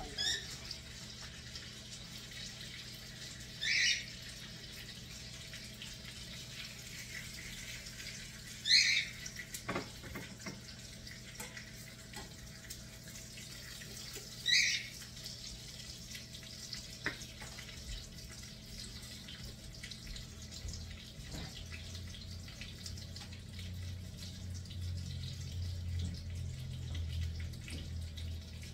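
Pot simmering on the stove, a steady faint bubbling hiss. Three short high chirps about five seconds apart stand out above it, with a few light clicks, and a low hum comes in about two-thirds of the way through.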